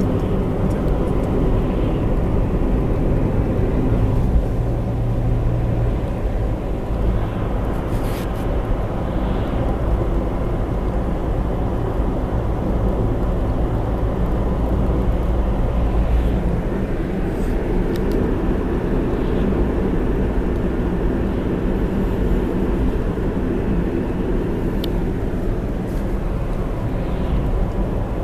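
Steady engine and tyre noise heard from inside a moving car: a continuous low rumble with a faint hum.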